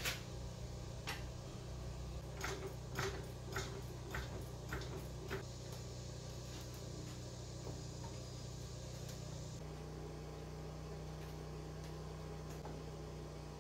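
Hydraulic floor jack being pumped to lift a motorcycle engine into its frame: a run of sharp clicks about every half second for the first five seconds, over a steady low hum.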